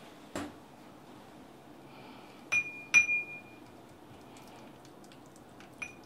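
A utensil clinking against a small cut-glass bowl while stirring a mixture in it. There are a few clicks, with two close together about halfway through; the second of these is the loudest and rings briefly.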